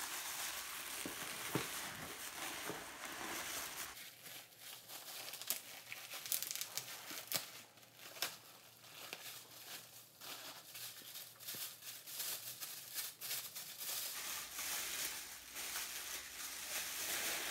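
Tissue paper and plastic bag packaging crinkling and rustling as it is handled, wrapped and unwrapped, with many sharp crackles.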